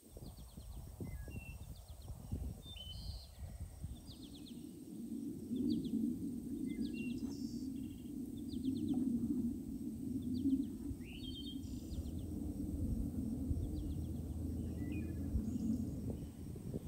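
Small birds chirping and calling in short, high phrases over a steady low rushing noise that swells about two seconds in and eases off near the end.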